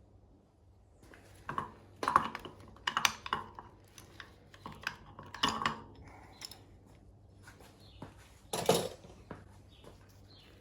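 Metal drum-brake parts clinking and knocking as a motorcycle's brake shoe assembly is handled and tried in the front wheel hub. The knocks come in irregular clusters, with the loudest one near the end.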